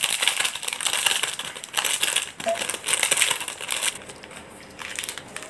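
Foil-plastic instant-noodle seasoning sachet crinkling as it is squeezed and shaken out over a bowl of noodles, the crinkling stopping about four seconds in.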